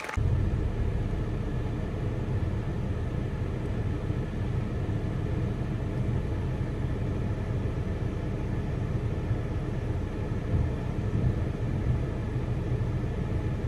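Steady low rumble of a car's cabin noise, with the car standing in a traffic jam with its engine running.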